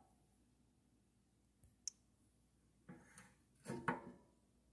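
Two short puffs of breath blown onto the glowing embers of a dying wood-stove fire, the second louder, after a single faint click about two seconds in; otherwise near silence.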